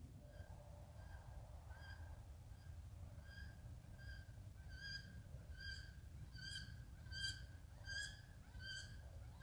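An animal's call repeated about every three-quarters of a second, about a dozen short pitched notes that grow louder over the last few seconds, over a faint steady low rumble.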